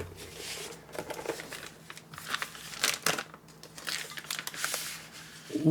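Packaging crinkling and rustling as a keyboard case is unwrapped, with scattered light clicks and taps.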